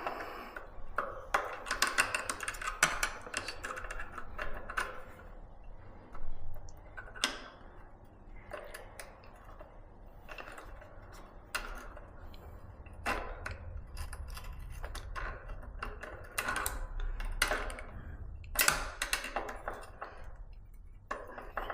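Pliers clicking and scraping against a disc brake pad retaining pin as the pin is bent over: a scatter of small, irregular metal clicks and taps.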